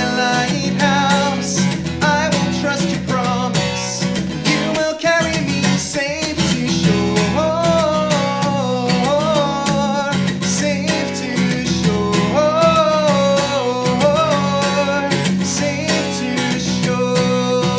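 Upbeat worship song: acoustic guitar strumming steadily under a sung melody.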